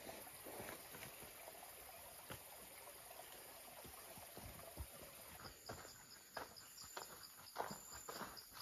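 Faint forest ambience: an insect chirping high and fast, about five pulses a second, starting about five and a half seconds in, with scattered faint taps and crackles.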